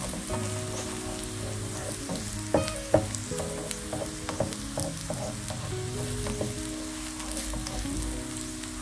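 Instant noodles frying in oil in a nonstick pan: a steady sizzle, with the slotted spatula pressing and scraping them and tapping sharply against the pan a few times, loudest about three seconds in.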